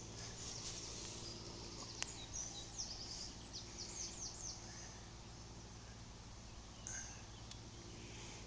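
A songbird singing a quick run of short, high, falling notes a few seconds in, over steady faint background noise.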